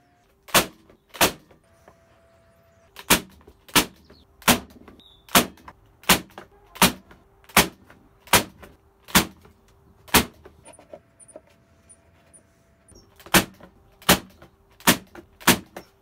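Electric nailer and staple gun firing fasteners into pallet-wood boards: sixteen sharp shots, two near the start, a steady run of ten at about one every three-quarters of a second, then four more near the end.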